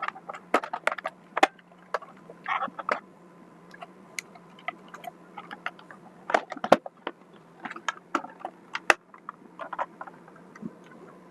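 Irregular clicks and knocks of hard plastic parts and small tools being handled while a Xiaomi robot vacuum is taken apart, with a low steady hum underneath.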